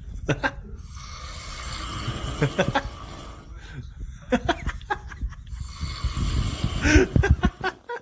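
Snoring in uneven spells with short gaps: a sleeper's snores answered by a person imitating them back.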